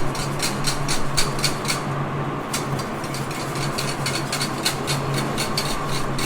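A utensil scraping and clicking against a pan in short irregular strokes, a few a second, as gravy is stirred while it heats. Under it runs the steady hum of a kitchen extractor fan.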